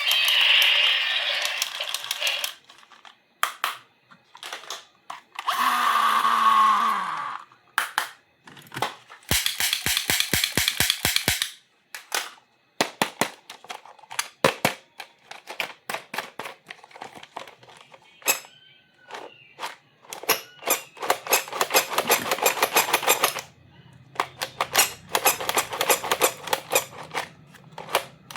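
Plastic toy playset parts and packaging being handled: bursts of crinkling and rustling, runs of rapid clicking, and single clicks and taps.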